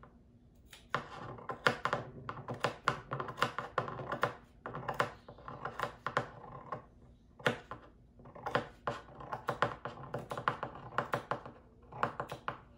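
Sewing scissors snipping cloth in quick short cuts, a few a second, with a couple of brief pauses. The snips are clipping notches into the curved seam allowance of a sewn cloth face mask piece so the fabric will bend.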